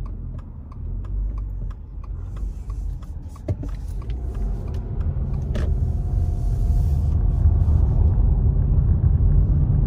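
Road noise and engine rumble heard from inside a moving car. It grows louder about four seconds in as the car pulls away from a turn and picks up speed, then holds steady.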